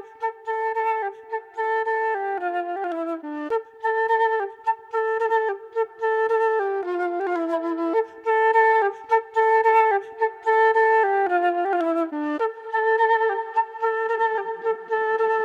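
Instrumental music: a looping flute melody of short stepping notes, the phrase repeating about every nine seconds, with a low sound joining near the end.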